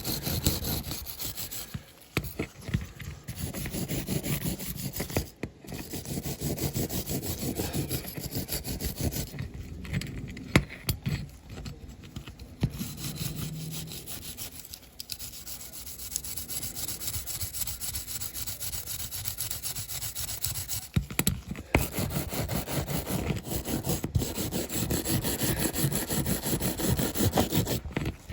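Brass wire brush scrubbing the bare die-cast metal body of a toy car in rapid back-and-forth strokes, with a few brief pauses. This is the final clean-up of leftover paint residue after stripping.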